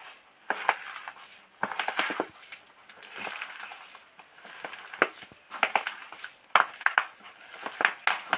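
A hand squeezing and kneading a stiff, chopped-spinach pakora mixture in a stainless steel bowl, making irregular crunching strokes, several a second at times.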